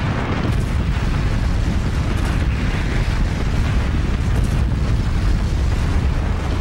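Sound effects of an earthquake and a great sea wave: a loud, steady, deep rumble with a rushing noise over it.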